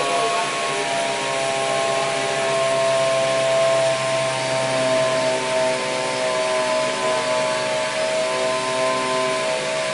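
Machine motor running steadily: a whine of several steady tones over an even hiss.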